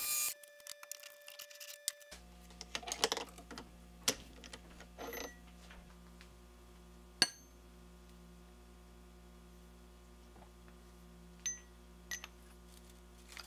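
Light metal clicks and clinks as a turned mild-steel guide is handled and slid into a knurled metal die-holder handle, over a faint steady hum; one sharper click about seven seconds in.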